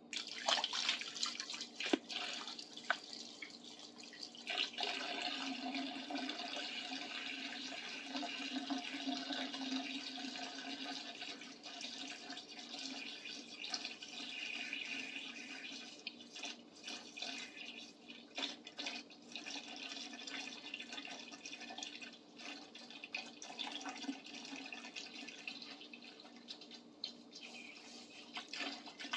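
Vinegar pouring from a gallon jug into a bucket of rusty hand tools, liquid splashing steadily into liquid, to soak off the rust.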